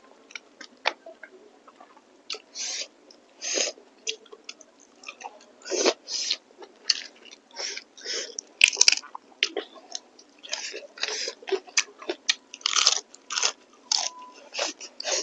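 Close-miked eating: irregular bites and chewing mouth noises, several short bursts every second or two, with one sharper click about nine seconds in.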